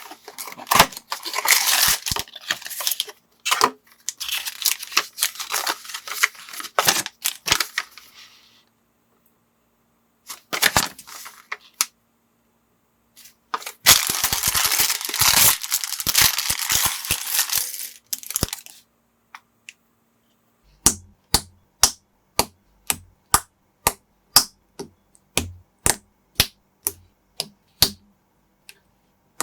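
Plastic parts bags being torn open and rustled, crinkling in two long stretches, then, from about two-thirds of the way in, a steady run of sharp plastic clicks about twice a second from small building-block pieces being handled.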